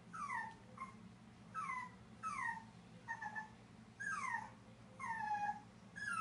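Boston Terrier puppy whimpering to get into the bathtub: a string of short high whines, each falling in pitch, about one a second.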